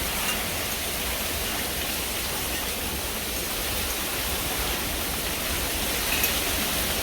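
Steady rushing noise of hurricane rain and wind, with a low rumble underneath.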